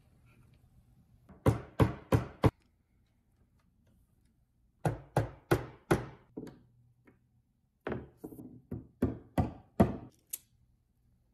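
Mallet tapping small 3D-printed plastic caps into holes in a shelf board, seating them as an interference fit. Three runs of quick, sharp taps, about three a second.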